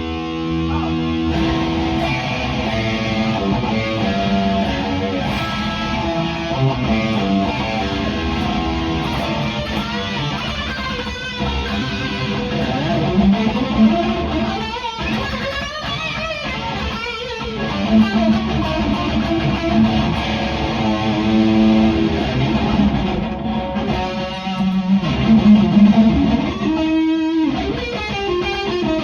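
Instrumental break of a metal song, led by electric guitar, with notes bending and gliding in pitch over a bass line.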